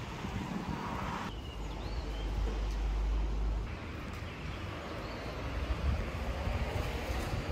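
Outdoor ambience with wind rumbling on the microphone. The background noise changes abruptly about a second in and again about halfway through.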